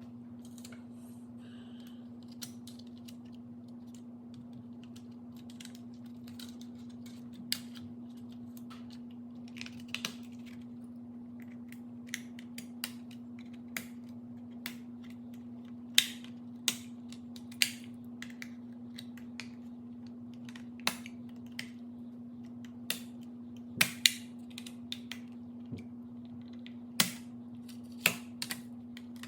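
Irregular sharp plastic clicks and taps from handling and fitting the parts of a BMW E39 HVAC button panel, coming more often in the second half, over a steady low hum.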